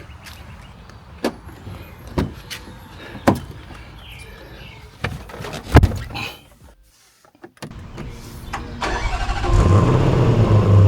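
A few knocks and clicks, then near the end a Land Rover Defender V8 cold-starting, catching and settling into a loud, steady idle.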